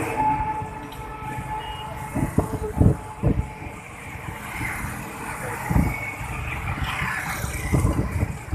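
Road traffic noise from vehicles, with a brief steady tone near the start and several low thumps: a run of three about two to three and a half seconds in, then more near six and eight seconds.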